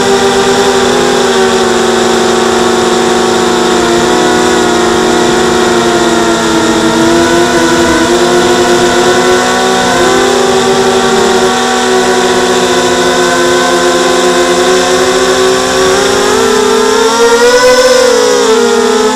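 XHover 230 mini quadcopter's motors and propellers whining steadily, heard up close through its onboard camera. The pitch wavers with throttle and climbs sharply near the end before easing back.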